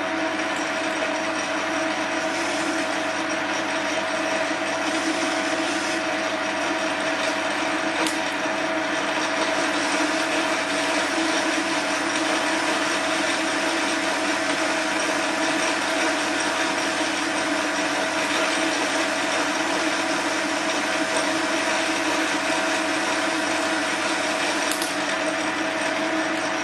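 Small bench metal lathe running steadily, its gear train whining at a constant pitch, while a DCMT indexable carbide insert takes a turning cut along a mild-steel bar under power feed.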